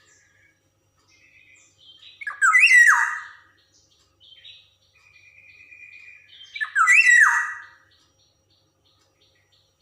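Black-naped oriole (Javan golden oriole) calling: two loud, harsh squawks about four seconds apart, each with a falling sweep, and softer chattering calls between them.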